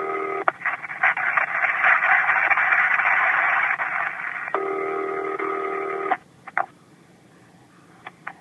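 Old-style telephone ringback tone from an intercept trunk, heard down a phone line: a ring burst, about four seconds of loud line hiss, a second ring of about a second and a half, then the line goes quiet apart from a few clicks as the trunk is about to cut through to the intercept recording.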